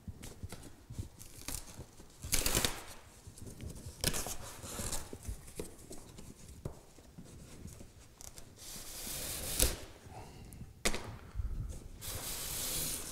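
Packing tape being torn off the end of a long cardboard shipping box and the cardboard flaps pulled open: a string of irregular rips and scrapes, the loudest about two and a half seconds in and again a little past the middle.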